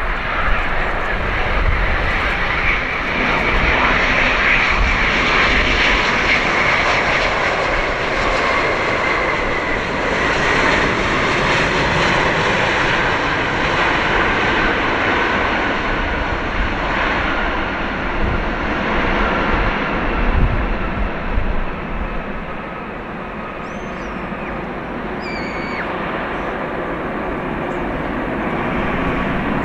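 Rolls-Royce Trent XWB jet engines of an Airbus A350-900 on its landing rollout: a steady rush of engine noise with a whine that falls slowly over the first dozen seconds as the airliner slows on the runway. The noise eases off a little after about twenty seconds.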